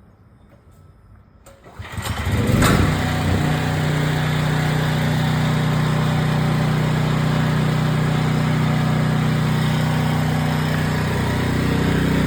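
Gas engine of an engine-driven welder starting: a short burst of cranking about two seconds in, then it catches and runs steadily.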